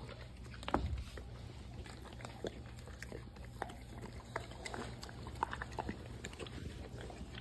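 Dogs licking and lapping ice cream from cups: irregular small wet smacks and clicks over a low steady hum.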